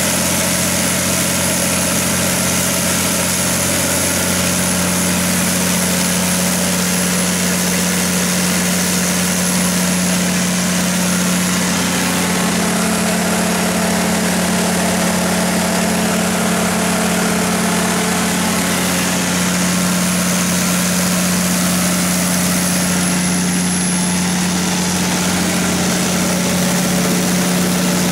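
Cummins NT855-G6 inline-six turbocharged diesel engine of a 275 kW generator set running steadily at a constant speed, with no muffler fitted.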